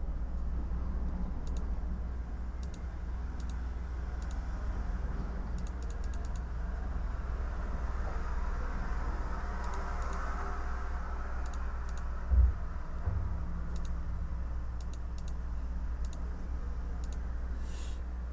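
Typing on a computer keyboard: irregular keystrokes, some single and some in quick runs, over a steady low hum. One dull thump about twelve seconds in is the loudest sound.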